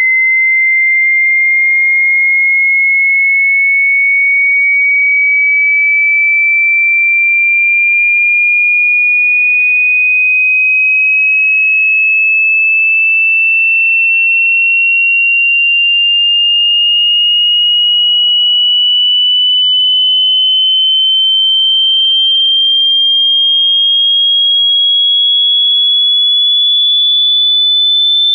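Pure sine-wave test tone, a single high whistle with no overtones, gliding slowly and evenly upward in pitch at a constant loudness: a hearing-test frequency sweep.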